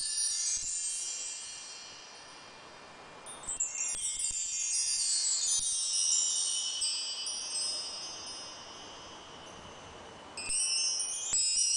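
Bar chimes with 25 solid 10 mm metal bars, swept by hand: each sweep sets off a run of bright ringing notes that rings on and slowly fades. The ringing of an earlier sweep dies away at the start, a new sweep comes about three and a half seconds in, and another near the end.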